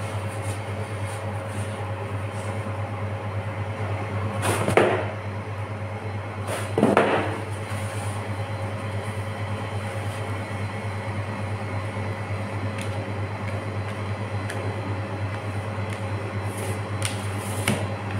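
Steady low electrical hum of kitchen equipment, with two short scraping or rustling handling noises about four and a half and seven seconds in, and a couple of light clicks near the end.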